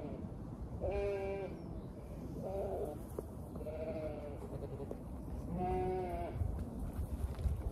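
Zwartbles sheep bleating: about five separate calls, each under a second long, spaced a second or two apart.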